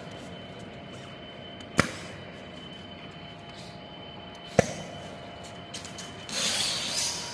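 Automatic tape-sticking machine cycling: a sharp mechanical clack twice, about three seconds apart, over a faint steady whine, then a hiss lasting about a second near the end.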